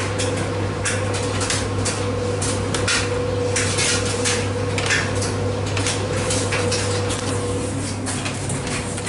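Steady hum of commercial laundromat washers and dryers running, with irregular clinks and clatters a couple of times a second.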